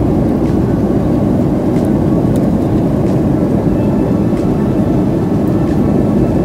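Steady airliner cabin noise in flight: the even rush of the jet engines and airflow, heaviest in the low range. A few faint light clicks sit on top of it.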